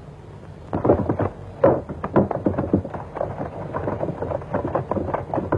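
Indistinct chatter of many overlapping voices, starting about a second in.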